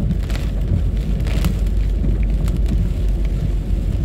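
Car cabin noise while driving on a wet street: a steady low rumble of engine and tyres on wet asphalt, with a few light ticks.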